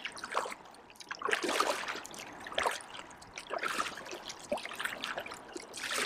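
Double-bladed kayak paddle strokes: the blades dip and pull through the water about once a second, with water trickling and splashing off them between strokes.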